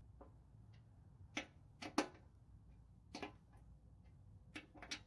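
Socket wrench on a long extension tightening the engine mounting bolts through the blower housing: a few scattered metallic clicks and taps, some close together in pairs, over a faint low hum.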